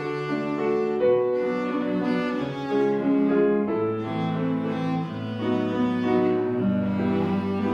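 Cello playing a slow, singing melody in long connected notes over piano accompaniment.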